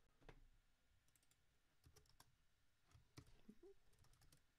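Faint, irregular clicks of typing on a computer keyboard, scattered keystrokes with short gaps between them.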